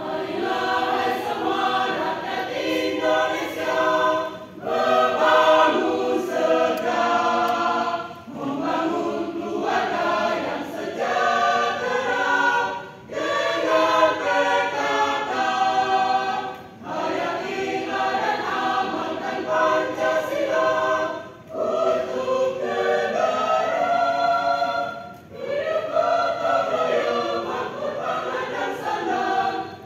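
Choir singing in phrases of about four seconds, with a brief break for breath between phrases.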